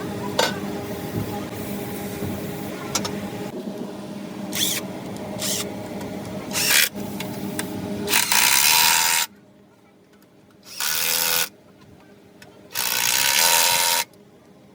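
A power tool runs in three short loud bursts in the second half, with quiet gaps between them. Before that there is a steady mechanical hum with scattered clicks and knocks.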